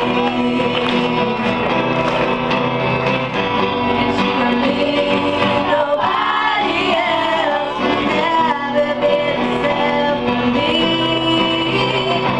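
A song: voices singing sustained, gliding melody lines over instrumental accompaniment.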